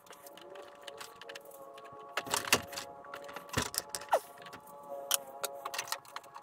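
Metal hand tools clinking and clicking irregularly as a wrench works the wheel-hub screws of a robot lawn mower, metal on metal, with a few louder clanks.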